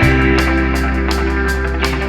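Background music: sustained bass and chord notes over a steady beat, with guitar.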